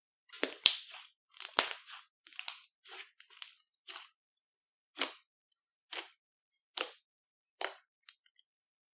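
Clear slime being squished and folded by hand, giving short wet crackles and pops: a quick run of them at first, then single squishes about a second apart.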